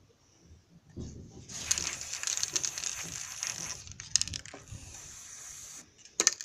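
Aerosol spray paint can spraying in a steady hiss, starting about a second in and stopping near the end, with a short break partway through. A few sharp clicks follow just after it stops.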